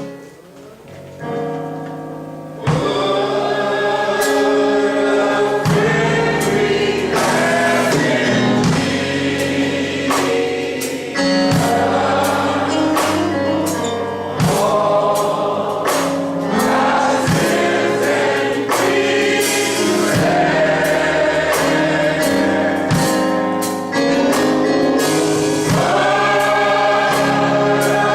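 Gospel choir singing with a steady beat behind it, starting in full about two and a half seconds in after a brief quieter moment.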